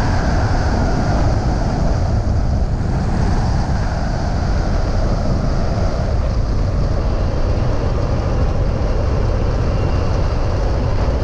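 Steady, loud wind rush over a wing-strut-mounted camera, with a Cessna 140's engine and propeller running underneath as the plane rolls along the runway.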